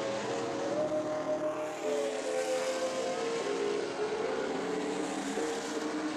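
Race truck engines running laps on an oval track: a steady drone whose pitch shifts up and down every second or two.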